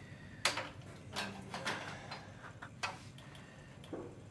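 Empty plastic asthma inhalers being handled and set down on a hard surface: a run of about eight irregular clicks and knocks, the loudest about half a second in.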